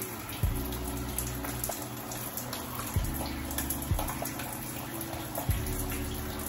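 Shower water running and splashing, over background music with a low bass line and occasional deep thumps.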